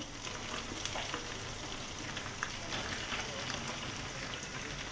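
Fish frying in hot oil in a pan: a steady sizzle with scattered crackling pops.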